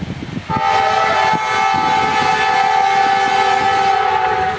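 Multi-note air horn of a GE Dash 9-40CW diesel locomotive sounding one long held blast, starting about half a second in and cutting off near the end. Under it is the rumble and wheel clatter of the passing freight train.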